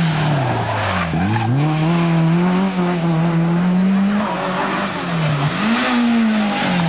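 Rally car engine at high revs, its pitch dropping sharply about a second in, climbing back and holding, then dropping and rising again around five seconds in, as the car lifts off and comes back on the throttle through the stage.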